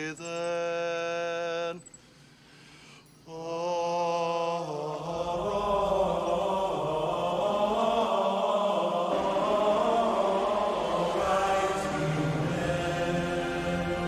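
A man chanting a meditation drone: one long steady note, a breath, then a second held note. From about five seconds in, music swells up and carries on.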